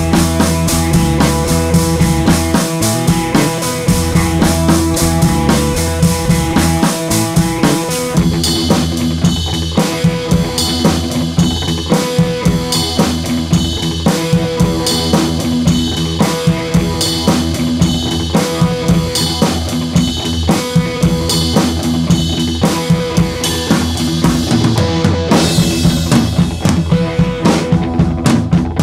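Music with a drum kit playing a steady beat; the arrangement changes about eight seconds in.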